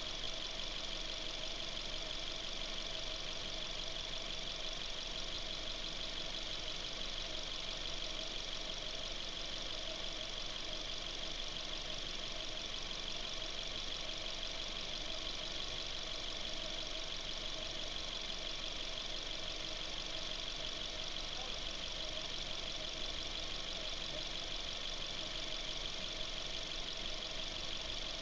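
Suzuki Ignis engine running steadily, with the unexplained noise that the owner wants diagnosed. It holds an even, unchanging sound with a steady high tone in it.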